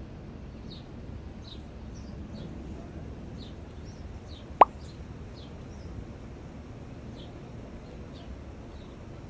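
A small bird repeating a short, high, slightly falling chirp every half second to a second over a low steady background. About halfway through comes one loud, brief sound that sweeps sharply up in pitch, like a plop.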